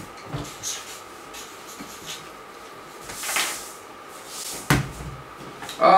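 Faint pen-on-paper scratching and handling rustle, then a single knock about three-quarters of the way through as a large dice is thrown and lands on a wooden tabletop.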